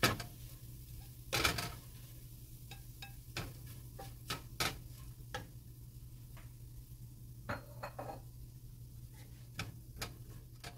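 Slotted spatula knocking and scraping against a nonstick frying pan as sliced shallots, garlic and chillies are stirred: a dozen or so scattered sharp clacks, irregularly spaced, over a steady low hum.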